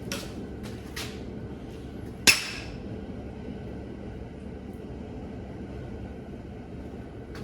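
Cub Cadet 127's single-cylinder engine running with a steady low rumble, broken by sharp pops: two small ones in the first second and a much louder bang about two seconds in. These are backfires shooting out through the carburetor, which the owner takes as a sign of a valve problem.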